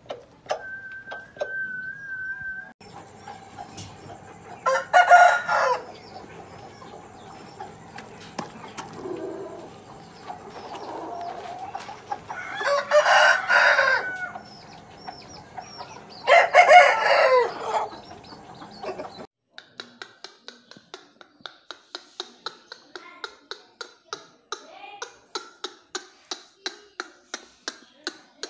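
Aseel rooster crowing three times, each crow about one to two seconds long. In the latter part, a steady run of sharp ticks, about two or three a second.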